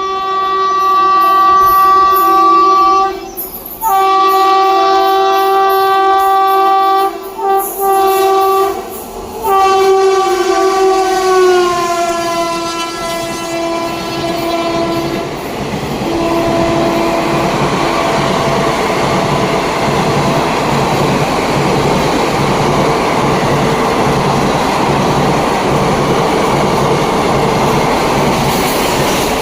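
A passing express train's horn sounds in several long blasts, the last one shorter, and drops in pitch as the locomotive goes by. The horn fades, then the coaches rush past at speed with a steady, rhythmic clatter of wheels over rail joints.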